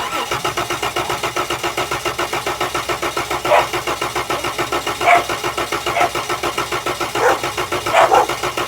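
A 2013 Chrysler Town and Country's 3.6-litre V6 cranking on the starter with the gas pedal held to the floor. It is a steady rhythmic whirr of about five or six pulses a second and never catches and runs. This is the cold-morning no-start that the owner traces to a bad fuel pump relay in the TIPM.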